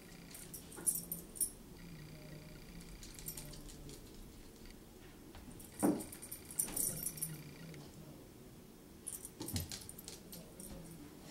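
A Bengal cat and a chihuahua play-fighting: scuffling with flurries of sharp clicks and rattles about four times, and one louder thump about six seconds in.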